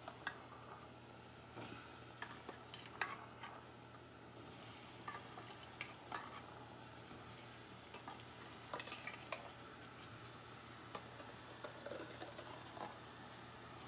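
A steel spoon clinking and scraping against a steel bowl and the rim of a steel pot as cooked black chickpeas are spooned into a pan of masala: light, irregular clicks and knocks.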